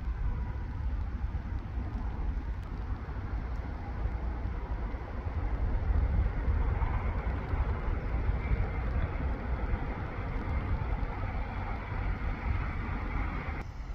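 Distant electric train approaching out of a tunnel, a rising rumble and hiss that grows over the last half, under steady wind buffeting the microphone.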